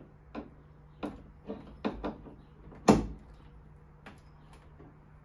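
Irregular clicks and knocks of parts being fitted by hand onto the raised tailgate of an Aixam Crossline microcar. The loudest is a sharp snap about three seconds in.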